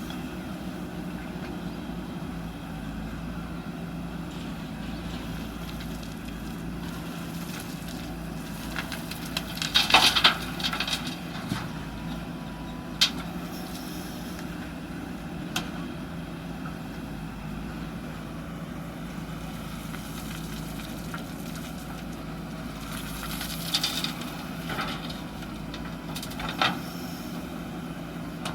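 JCB backhoe loader's diesel engine running steadily while it handles gravel, with clattering crashes of gravel and the steel bucket. The loudest burst of crashes comes about ten seconds in, with single knocks after it and another cluster near the end.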